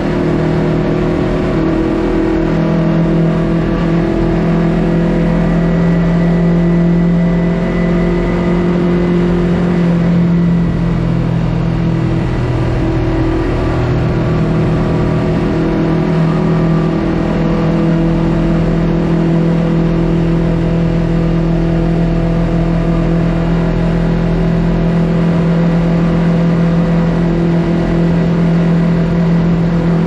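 Yamaha YZF-R3's parallel-twin engine breathing through an Akrapovic full-system exhaust, running steadily at cruising speed inside a road tunnel. The pitch holds mostly level, with small rises and dips.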